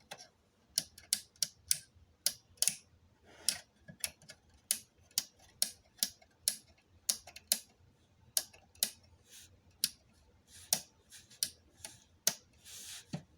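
Irregular sharp clicks and taps, about two or three a second, from handling the parts of an exit sign and emergency light unit, with a softer rustle near the end.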